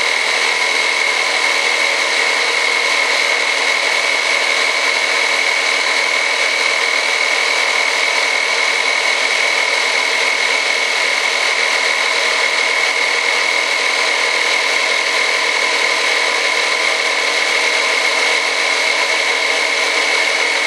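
Small electric air compressor running steadily with a high whine, pressurising the air system for pneumatic landing-gear retracts; it cuts off suddenly at the very end.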